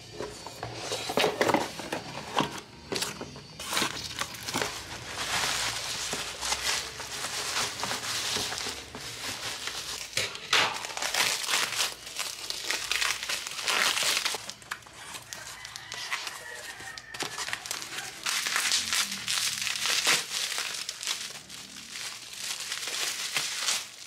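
Plastic bubble wrap crinkling and rustling as hands unwrap a package, with many sharp crackles throughout.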